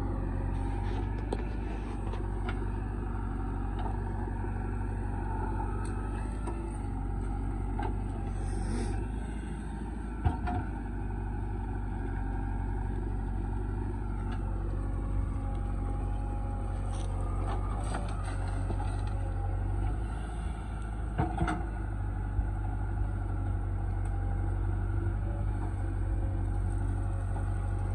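Diesel engines of a JCB 3DX backhoe loader at work and a Mahindra Yuvo tractor standing by, a steady low running sound. A few brief knocks, the sharpest about ten and twenty-one seconds in, come as the backhoe bucket digs into the soil.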